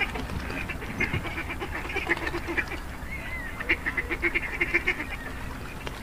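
A flock of white domestic ducks quacking, many short overlapping calls with a quick run of them in the second half.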